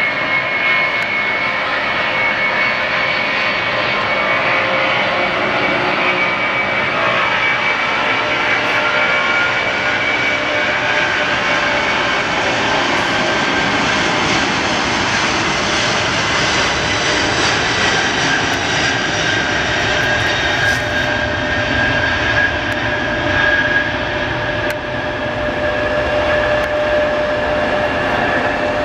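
FedEx DC-10 jet engines running at high power, a loud steady roar with several whining tones that slowly glide, one high whine falling in the first half and a lower one rising near the end.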